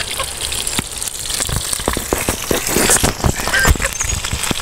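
Pieces of dove meat frying in a small pan over a wood fire, sizzling with irregular crackles and pops.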